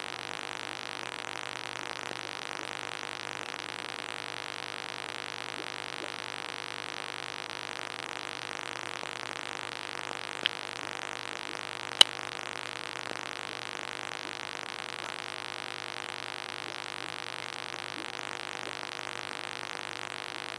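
Steady hiss with a faint low hum from aquarium equipment, broken by two sharp clicks a second and a half apart near the middle, the second much louder.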